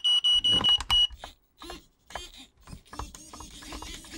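Radio-control transmitter giving a rapid, high-pitched warning beep that stops about a second in. Then come scattered clicks and short whirs of small hobby servos turning a pan/tilt gimbal.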